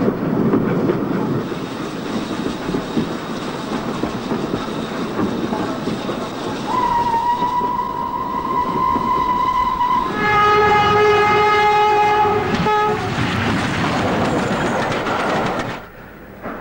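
A train running on the track with a steady rumble and the clatter of wheels over rail joints. Its horn sounds a long high note about seven seconds in, then a lower, fuller note for nearly three seconds. The running noise drops away sharply near the end.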